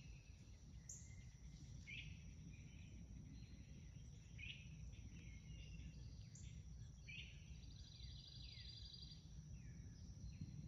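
Faint woodland ambience by a pond: scattered short bird chirps and calls, one quick trill about eight seconds in, over a steady high insect hum and a low background rumble.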